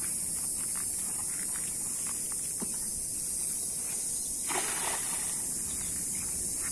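Cicadas singing in a steady, high-pitched droning chorus. About four and a half seconds in comes a brief rush of noise, with a few faint clicks earlier on.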